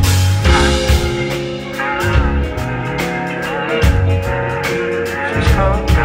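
Live rock band playing: electric guitar, bass guitar and drum kit, with regular drum and cymbal hits and a guitar lead line that wavers and bends in pitch.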